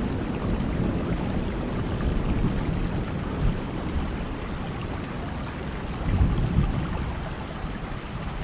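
Steady rainfall, a continuous hiss of drops, with low rumbles swelling now and then, the loudest about six seconds in.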